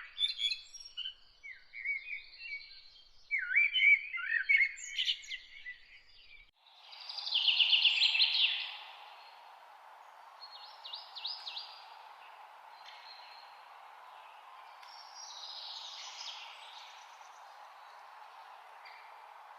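Songbirds chirping and calling in quick, rising and falling notes. About six and a half seconds in, a steady rushing hiss sets in under them; a loud, fast trill follows right after it, then fainter calls over the hiss.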